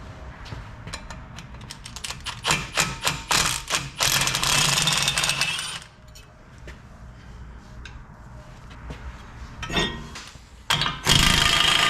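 Hand tools working on a car's front wheel hub: a run of sharp clicks, then two loud buzzing bursts about four and eleven seconds in, as a fastener is worked loose during a wheel bearing removal.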